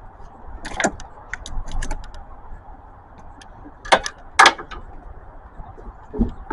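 Metal tool clicking and scraping on a corroded car battery terminal as it is cleaned: a run of short scrapes and clicks in the first two seconds, two sharp clicks about four seconds in, and a dull knock near the end.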